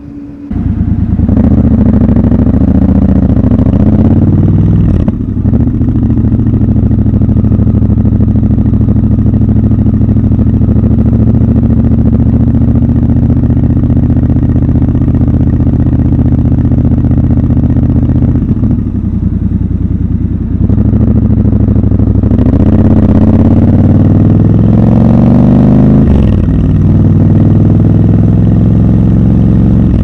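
Triumph Scrambler 1200 XC's 1200 cc parallel-twin engine starting about half a second in, then running steadily as the bike rolls away at low speed. In the last third it accelerates with rising pitch several times, with short dips between the pulls.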